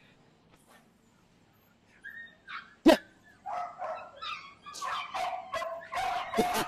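Pit bull barking and whining in short bursts, with one loud, sharp bark about three seconds in and the bursts growing louder toward the end.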